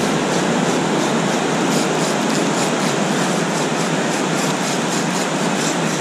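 Spinning reel's drag buzzing steadily with fine rapid clicks as a large hooked ray strips line off the spool against it. The fish is running and can't be stopped.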